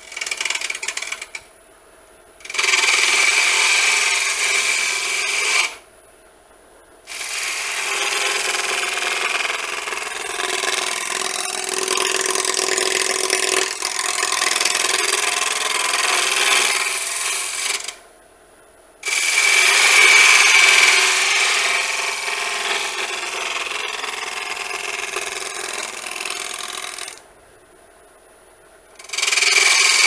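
Round carbide cutter scraping a spinning cedar log on a wood lathe: a hissing, scraping cut in repeated passes, one short and then several long ones. Between the passes, for a second or two, only the lathe's faint whine is heard.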